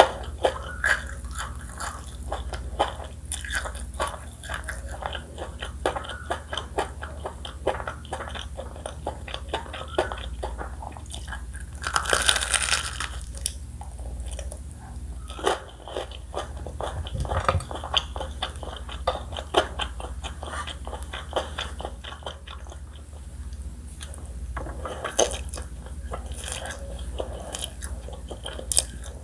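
Close-miked mouth eating sounds: steady chewing with many irregular biting clicks and crunches, and a louder, longer crunch about twelve seconds in.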